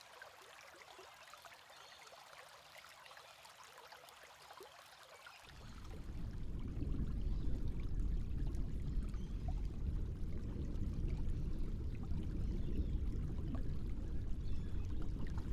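Water trickling in a shallow enclosure pool. About five seconds in, it gives way to a much louder, muffled low rumble of water heard from below the surface, which stops right at the end.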